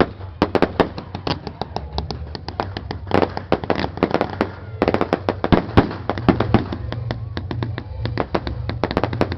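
Fireworks going off in a rapid, irregular string of sharp cracks and pops, several a second, like a long chain of firecrackers.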